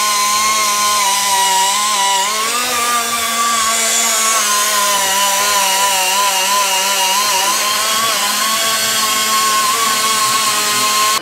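Snap-on pneumatic die grinder running at high speed as it grinds the ports of a cast-iron Chrysler 440 cylinder head: a continuous loud whine whose pitch wavers slightly as the bit bears on the metal. It cuts off at the very end.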